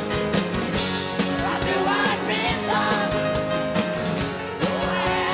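Live rock band playing, with drum hits, guitars and a singing voice over the top.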